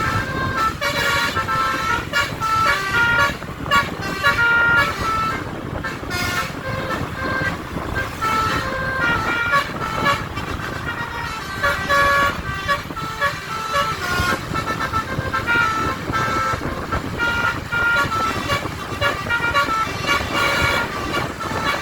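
Basuri 'telolet' multi-tone horn playing a tune of short notes that step up and down, one after another with little pause, over a steady vehicle rumble.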